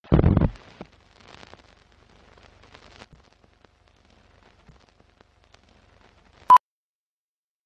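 Intro animation sound for a film countdown leader: a loud low thump at the start, faint crackle and scattered clicks, then a single short high beep about six and a half seconds in, the countdown-leader beep.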